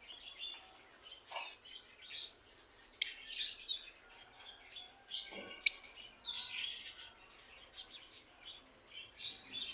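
Lovebirds chirping: many short, high, overlapping chirps in a steady irregular chatter, with a couple of sharp clicks.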